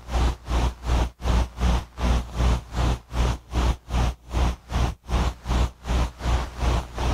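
Gain-smashed, distorted tape noise: a harsh hiss over a deep low hum, pulsing on and off steadily about three times a second.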